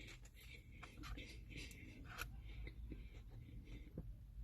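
Faint eating sounds: a man chewing a bite of a grilled chicken sandwich, with soft scratchy rustles and small clicks over a low steady hum.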